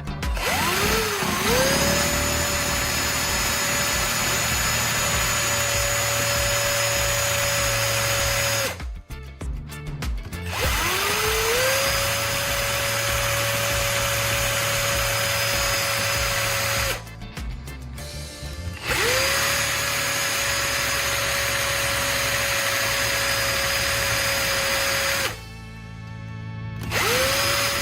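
Electric drill boring a hole in a wooden block. It runs three times for several seconds each, spinning up to a steady whine and then stopping, and starts briefly a fourth time near the end.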